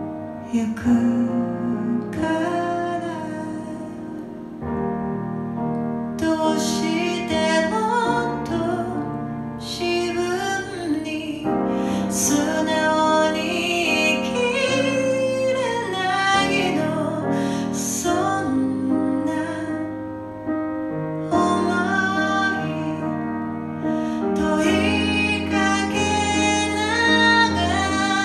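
A woman singing a Japanese pop ballad into a microphone, accompanying herself on piano.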